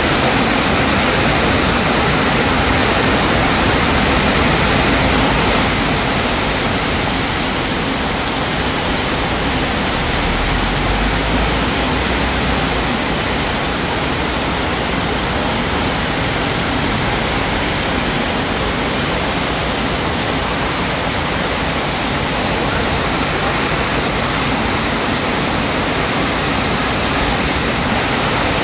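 Rain falling steadily, a loud, even hiss.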